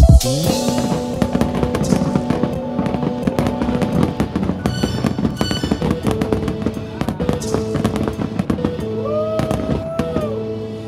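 Aerial fireworks display: a dense run of bangs and crackling from bursting shells, mixed with music.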